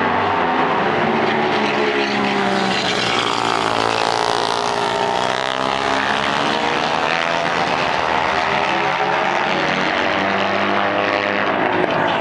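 Several flat-track race motorcycles lapping a paved oval, their engines revving up and down through the turns, with pitches rising and falling.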